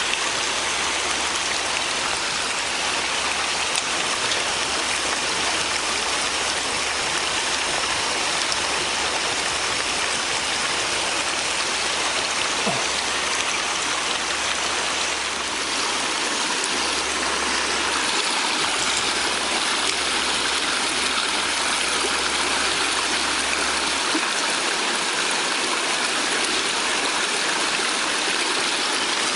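Mountain stream water rushing steadily, a dense, even wash of flowing water.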